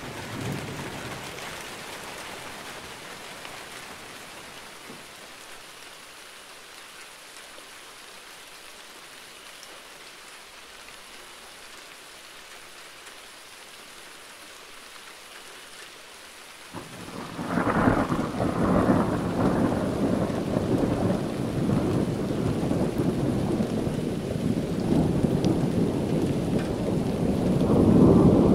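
Steady rain falling, with the last of a roll of thunder dying away at the start. A little over halfway through, thunder breaks out suddenly and rolls on loudly for the rest of the time, swelling again near the end.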